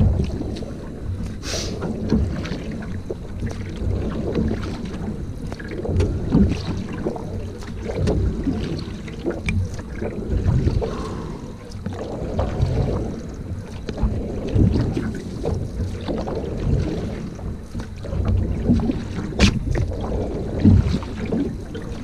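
Single-blade paddle strokes driving a sprint canoe: water splashing and rushing along the hull in a surge about every two seconds, with wind buffeting the boat-mounted microphone. A sharp click is heard twice, once near the start and once near the end.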